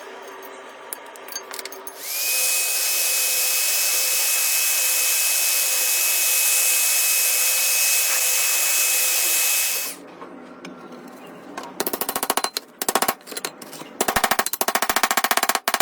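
A power tool motor runs up and holds a steady high whine for about eight seconds, then stops abruptly. Later come several short bursts of a fast, even rattle.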